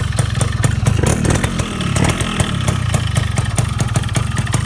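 Yamaha RX-King's single-cylinder two-stroke engine running near idle with a steady, rapid popping exhaust beat, freshly ported and tuned up. The beat briefly changes around the middle as the throttle picks up, then settles.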